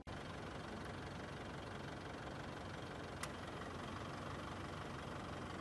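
Engine of a four-wheel-drive pickup idling steadily, a low even hum, with one short click about three seconds in.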